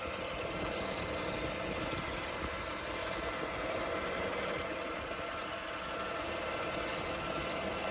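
Wood lathe running steadily with a steady hum, spinning a crochet-hook blank while a polishing wax bar is held against it.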